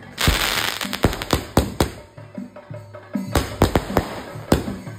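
Fireworks going off: a rush of hissing, crackling sparks as they launch from the ground in the first second, then a quick string of sharp bangs as the shells burst overhead. A devotional song plays underneath.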